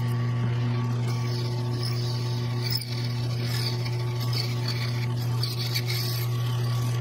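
Benchtop drill press running with its bit cutting into flat steel bar: a steady motor hum with scratchy cutting noise over it.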